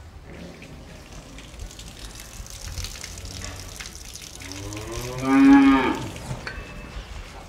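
A cow mooing once: a single long moo, rising in pitch and loudest near its end, coming a little past the middle.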